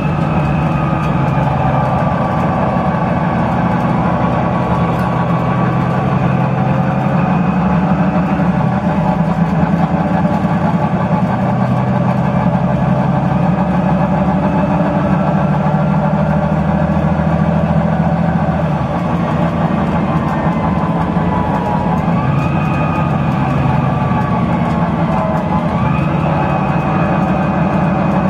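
Volvo B9TL Wright Gemini 2 double-decker bus's six-cylinder diesel engine running loud under way, heard from the upper deck, with a whine that rises and falls in pitch several times as the bus pulls through its gears.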